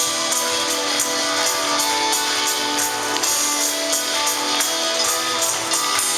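Live rock band playing, led by guitars, over a steady beat of bright percussion hits.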